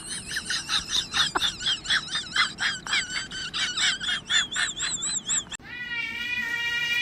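A small animal chirping rapidly: a run of short, high-pitched squeaks that rise and fall in pitch, about four a second. About five and a half seconds in it cuts off suddenly and a steady high held tone takes over.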